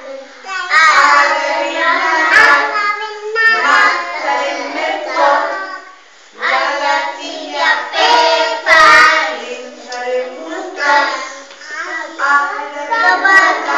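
A group of young children singing a song together, with a short pause about halfway through.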